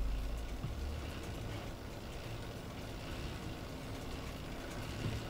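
Steady low background rumble with no distinct event, a little stronger at the start.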